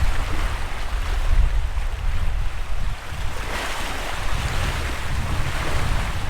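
Sea waves washing in: a hiss that swells and eases every couple of seconds, with wind rumbling on the microphone.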